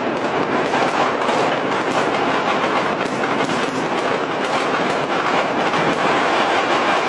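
Dense, unbroken crackle and popping of countless firecrackers and fireworks going off all over a city, merging into one continuous rattle.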